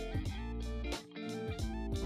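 Background music: a light tune of plucked guitar notes, with a brief drop about a second in.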